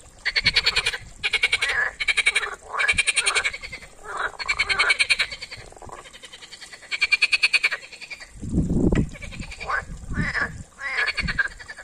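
Chorus of European green frogs (water frogs) calling, several calls overlapping. Each call is a short train of rapid pulses lasting under a second, and a deeper call comes about eight and a half seconds in.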